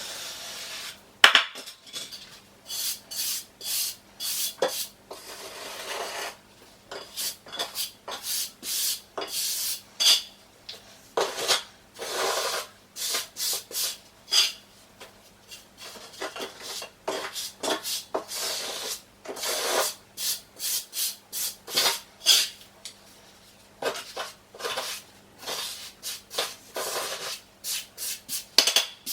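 Trowel scraping and smoothing mortar, a long run of short scraping strokes, roughly two a second.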